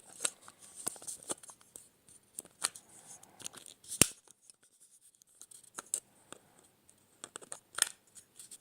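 Small plastic accessory parts being handled and pushed into place: scattered light clicks and rustling, with a sharp click about four seconds in and another near the end.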